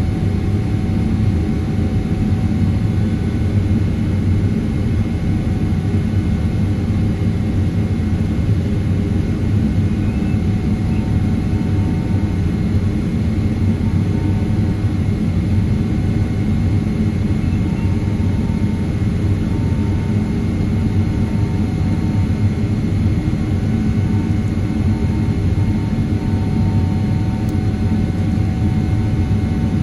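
Cabin noise of a Boeing 777-300ER climbing after takeoff, heard from a window seat beside the wing: a steady low rumble from its GE90-115B turbofans and the rushing air, with faint steady whines above it.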